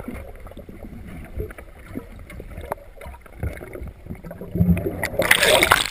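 Water sloshing and lapping around a person moving in a garden pond, with a louder splash near the end.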